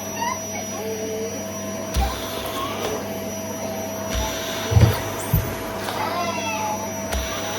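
Household vacuum cleaner running steadily with a constant whine, with a few short low thumps along the way.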